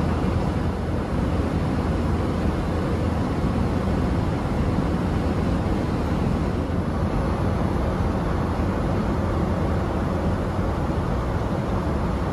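Steady rushing cabin noise of a Boeing 787-8 airliner in flight, heard from inside the cabin, with most of its weight in the low end and no change throughout.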